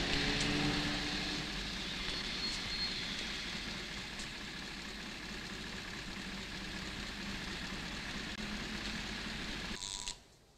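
City bus engine running while the bus stands at the stop. Its hum dies away about a second and a half in, leaving a steady wash of street traffic noise that cuts off suddenly near the end.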